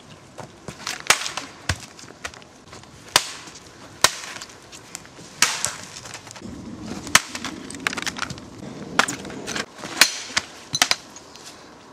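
A series of sharp, irregular cracks and snaps, more than a dozen, spaced unevenly with some in quick pairs.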